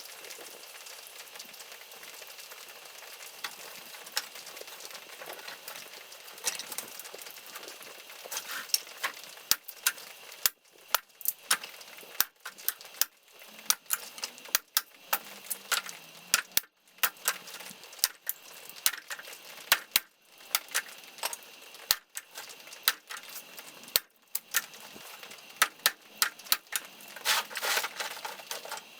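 Dry firewood branches being handled: a faint steady hiss, then from about eight seconds in a run of sharp, irregular wooden knocks and clacks, one or two a second.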